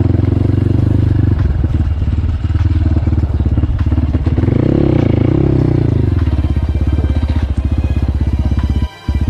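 Crossfire motorcycle engine running steadily while riding off-road. The engine note rises and falls once about halfway through, then the sound drops out briefly near the end.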